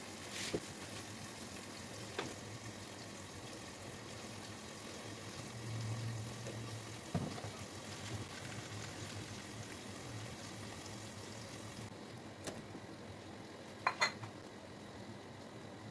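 Butter-garlic sauce simmering in a non-stick frying pan, a steady bubbling hiss, with occasional light knocks of a silicone spatula against the pan and two sharp clicks near the end.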